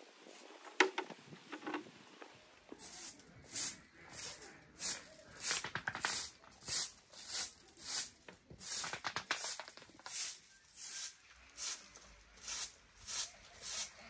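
Traditional straw broom sweeping a dirt floor strewn with straw, in quick regular swishing strokes about one and a half a second, starting a little under three seconds in. A single sharp knock about a second in.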